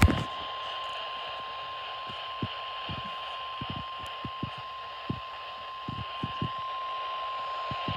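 NOAA Weather Radio warning alarm tone: a single steady high beep held unbroken, received over the radio with a hiss of static behind it. It signals that a weather warning is being broadcast. A sharp click sounds at the start, and faint low pops are scattered through.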